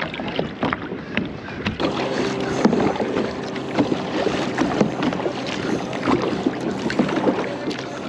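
Kayak being paddled: water splashing and sloshing with paddle strokes, full of small knocks and splashes, fading out near the end.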